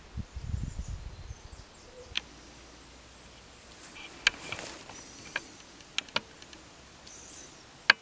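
Quiet woodland ambience: wind buffets the microphone for the first second or so, then there are faint high chirps and about half a dozen sharp clicks scattered through the rest.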